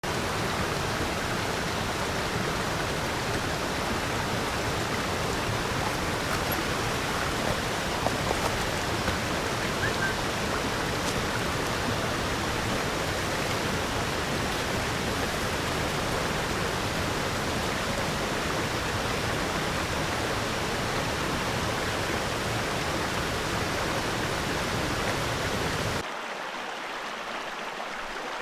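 Water rushing steadily over rocks at a small mountain creek waterfall. Near the end it cuts to a quieter, thinner flow with less low rumble.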